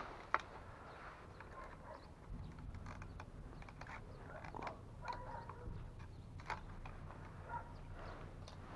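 Faint creaks and scattered clicks of plastic parts being worked by hand while the Lexus IS200's fuel pump module is pulled out of the tank, with a faint low hum joining about two seconds in.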